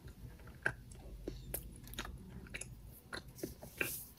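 A person chewing a mouthful of flaky chocolate puff pastry, with faint, irregular wet mouth clicks and smacks.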